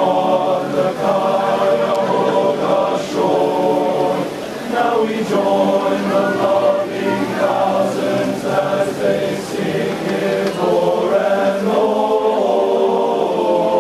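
Men's chorus singing in harmony: held chords in phrases, with short breaks between them.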